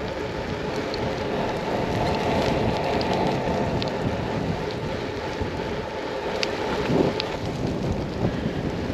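Rain and wind noise outdoors: a steady rushing noise with a low rumble, and scattered faint ticks of raindrops.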